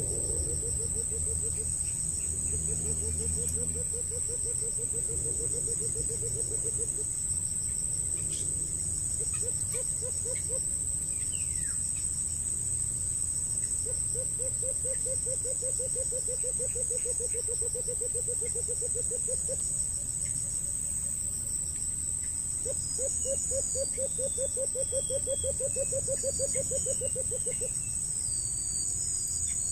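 Insects droning at a steady high pitch throughout, with a low, rapid pulsing call repeated in runs of a few seconds, five times.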